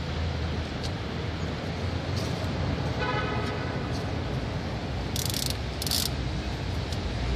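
Steady background traffic noise with a short horn-like toot about three seconds in, followed by two brief hissing sounds a little later.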